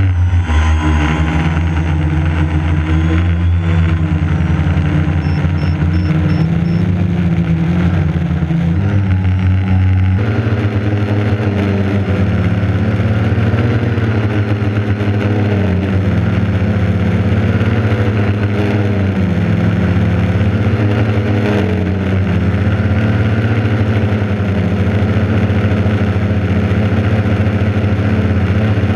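Quadcopter's electric motors and propellers running, heard from the camera on the craft, with the pitch rising and falling as the throttle changes. The sound changes abruptly about ten seconds in.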